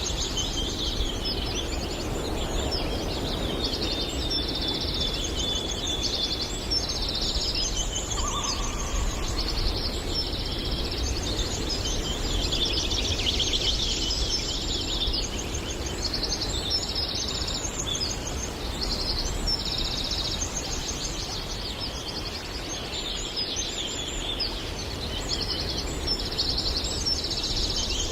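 Several songbirds singing and chirping at once, a dense chorus of overlapping trills and chirps, over a steady low rumble of background noise.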